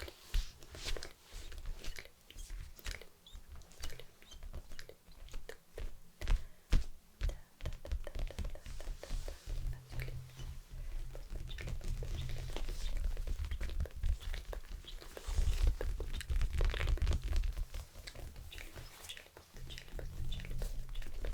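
Close-miked ASMR massage sounds: hands rubbing and pressing on or right at the microphone, with many sharp crackling clicks and, in long stretches, a low rubbing rumble.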